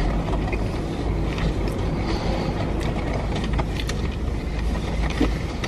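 Steady low rumble and hiss inside a car's cabin with the engine running, with a few faint small clicks over it.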